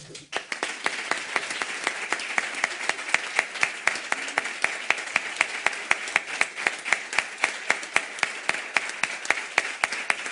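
Audience applauding after a speech, with sharper claps standing out in a steady, even beat of about three a second.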